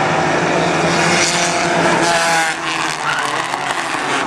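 A pack of compact stock cars racing, several engines running at once, their pitch rising and falling as the cars pass and work through the turn.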